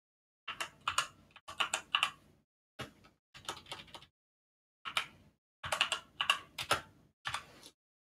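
Typing on a computer keyboard: short runs of keystrokes with brief pauses between them as a search query is typed.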